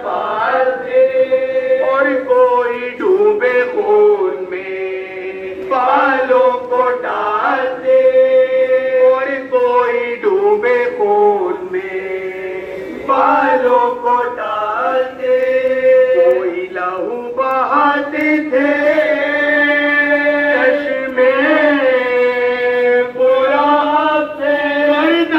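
Men's voices chanting a Muharram noha (lament) through a microphone: a melodic lead line rising and falling over steady held notes from the other reciters.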